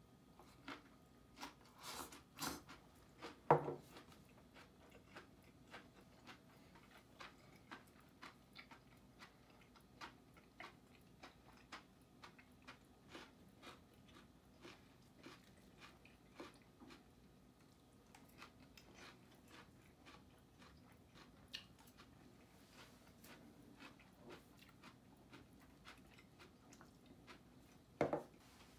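Faint, close chewing and biting of crisp raw vegetables, with soft crunches about once or twice a second. A few louder knocks of tableware and chopsticks come about three seconds in and again near the end.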